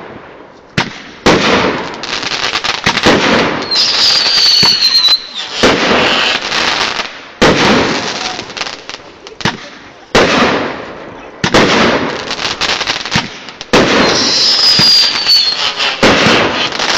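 Aerial fireworks going off: a sharp bang about every two seconds, each followed by crackling. Twice, a high whistle slides slightly downward.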